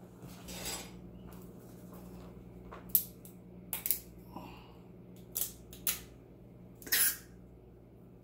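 Clicks and knocks of a Reddi-wip aerosol whipped-cream can being handled as its plastic cap is pulled off, with one short hiss near the end.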